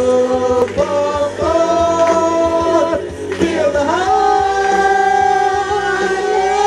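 Singing through a microphone over amplified backing music, with three long held notes, each pitched higher than the last.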